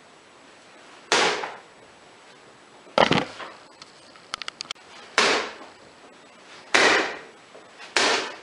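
A thrown pocket knife striking a wooden target five times, each hit a sharp knock with a short ringing tail. A quick run of light clicks falls between the second and third hits.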